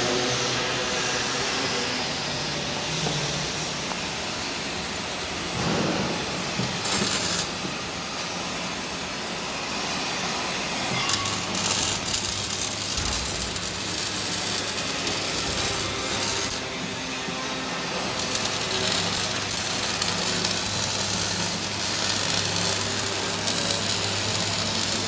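Carpathian SM 110 manual sawmill running, its saw cutting through a log with a steady, high sawing hiss. A steady low hum comes in about eleven seconds in.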